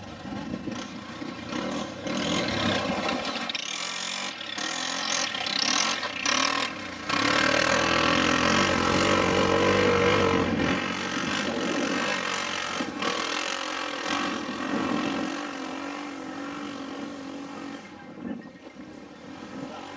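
Side-by-side UTV engines revving hard on a dirt hill climb. The engine note rises and falls with the throttle, is loudest about halfway through as a vehicle passes close, then drops back.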